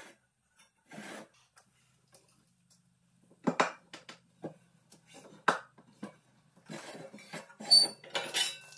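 Homemade manual sheet metal brake being worked by hand to bend 1/8-inch steel plate: separate metal clanks and knocks as the clamp bar and bending leaf move, ending in a quick cluster of clanks with a high metallic ring.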